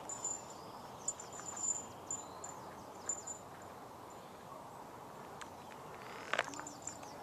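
Outdoor ambience: a steady hiss with short, very high chirps scattered through it, and one brief sharper sound about six seconds in.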